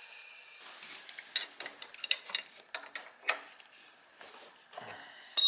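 Metal hand tools clinking and tapping in a string of sharp separate clicks, with a brief high-pitched tone starting near the end.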